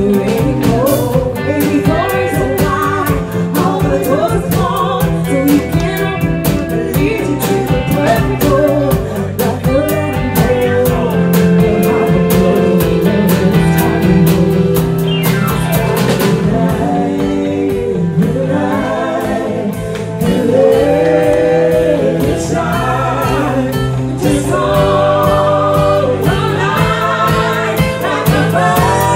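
A woman singing a pop song live into a microphone, backed by a band with drum kit and electric guitar keeping a steady beat.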